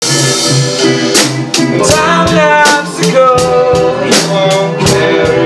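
Small rock band playing: electric guitars over a drum kit, with cymbal hits every second or so and a melody line that glides in pitch through the middle.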